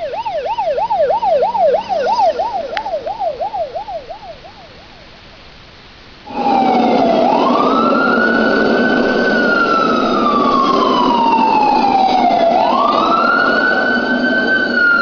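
Recorded police siren from a sound effects CD, played back through a radio, in a fast up-and-down wail of about four cycles a second that fades out about four seconds in. About six seconds in a second siren starts abruptly: a slow wail that rises quickly and falls slowly, about five seconds per cycle, over a steady low drone.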